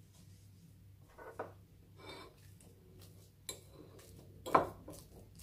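Metal fork mashing a soft banana on a ceramic plate: a few scattered clicks and scrapes of fork tines on the plate, the loudest about four and a half seconds in.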